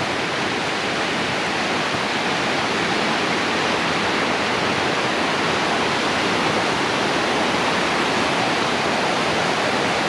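Rain-swollen creek rushing and cascading over rocks in a steady roar of water, running high after heavy rain.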